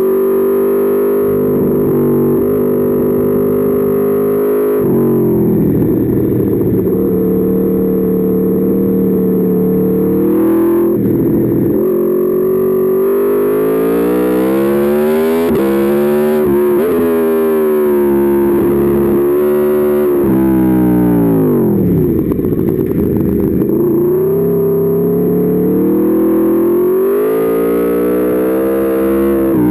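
Aprilia Tuono V4's V4 engine under hard riding, its pitch repeatedly climbing under acceleration and falling away as the rider slows. The deepest drops come about 6, 11 and 22 seconds in.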